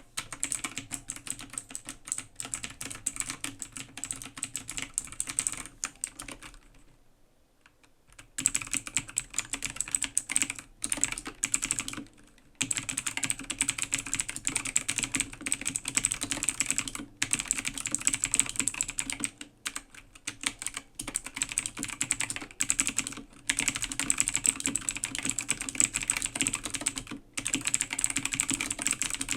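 Fast typing on an A2 AG0302 full-size mechanical gaming keyboard with clicky blue switches: a dense, continuous stream of key clicks. There is a pause of about two seconds roughly a quarter of the way in and a few brief breaks later.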